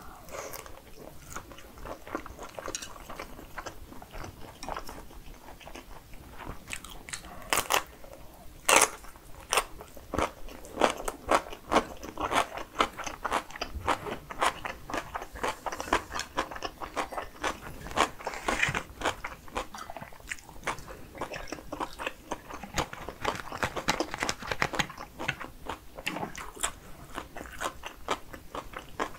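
Close-miked biting and chewing of a plump sausage: a dense run of irregular wet mouth clicks and crunches, the loudest about nine seconds in.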